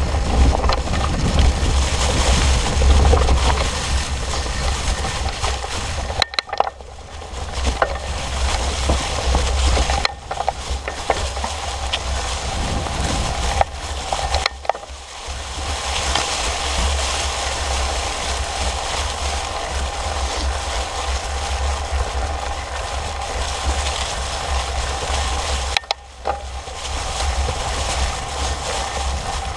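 Fat bike tyres rolling over dry fallen leaves, with heavy wind buffeting the bike-mounted microphone; the noise drops away briefly about four times.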